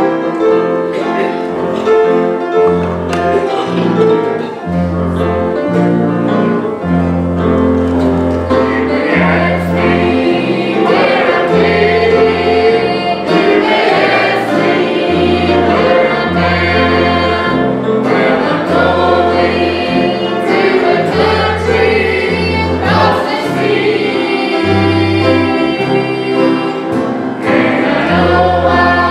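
Church choir singing a gospel hymn, accompanied by acoustic guitar and a steady bass line; the music starts suddenly at the beginning.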